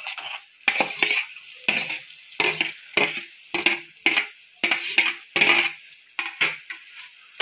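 Metal spoon scraping and clinking against a steel plate, pushing boiled potato pieces off it into a pan: a run of short, sharp scrapes and clinks, about two a second.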